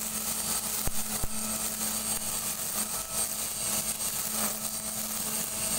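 STIHL FSA 56 battery-powered string trimmer running, its electric motor giving a steady, smooth whine as the spinning nylon line cuts grass.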